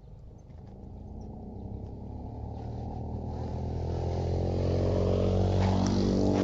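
A motor vehicle's engine running at steady speed, growing louder as it approaches and passes close by near the end.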